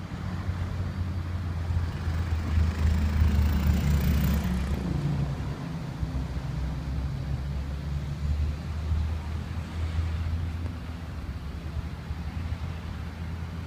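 Duewag MGT6D low-floor tram standing at a stop, its on-board equipment giving a steady low hum. A louder wash of noise swells between about two and five seconds in.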